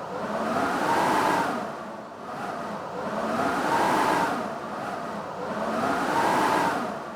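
Blizzard wind howling in three rising and falling gusts, with a whistling tone that climbs and sinks in each surge.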